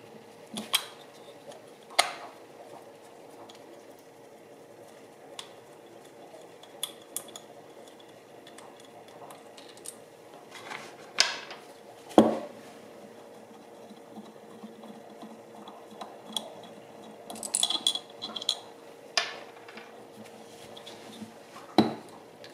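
Scattered clicks, clinks and knocks of a 1.6 HDi EGR valve being handled: the black plastic actuator being worked loose from the metal valve body and its small screws set down on the bench, the sharpest knock about halfway. A faint steady hum runs underneath.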